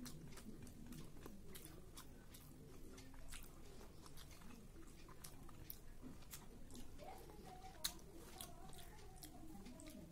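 Quiet eating by hand: soft chewing with scattered small wet clicks as rice and curry are mixed and eaten with the fingers. There is one sharper click about eight seconds in.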